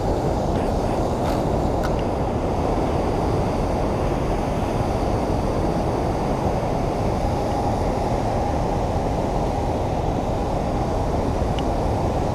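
Water rushing steadily out of a dam spillway and churning below the gates: a loud, even, low rush. A few faint clicks come near the start and again near the end.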